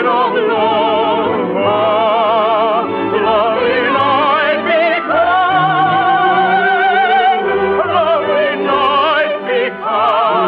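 Operatic soprano singing a sustained, wide-vibrato melody with orchestral accompaniment, in the narrow, thin sound of a 1950s radio broadcast recording.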